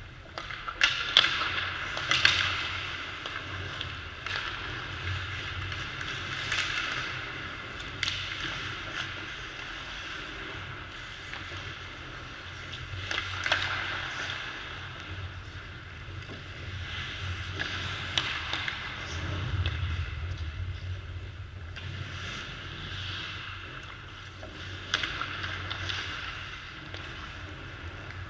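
Ice hockey skates scraping and carving on the ice in repeated swells, with sharp clacks of sticks and pucks, the loudest a cluster about two seconds in, over a low steady hum.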